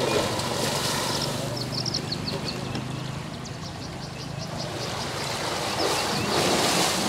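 Water splashing and churning as an Asian elephant moves in a canal, with a louder surge of splashing about six seconds in as it heaves against the wall. A run of short high chirps sounds in the first half.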